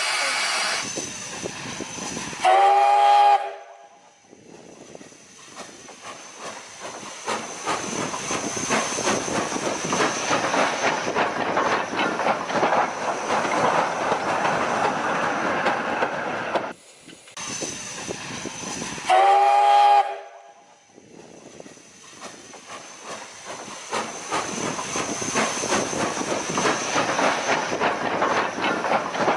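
Steam locomotive whistle sounding a short blast of about a second, followed by the noise of the moving train building up over several seconds. The whistle-then-train sequence comes twice.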